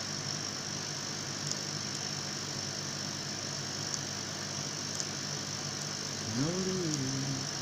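Steady electric hum and hiss from a CO2 laser cutter's running support equipment: air compressor, water pump and exhaust fan. A few faint clicks, and a short tone that rises then falls about six seconds in.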